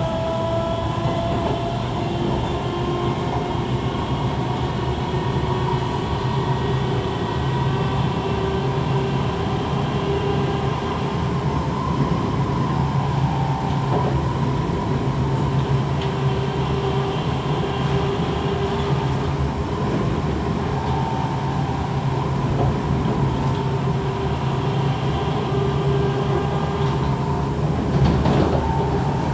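Kawasaki C151 metro train running between stations, heard from inside the car: a steady rumble of wheels on rail under a whine of several tones from the traction motors. The noise grows louder near the end.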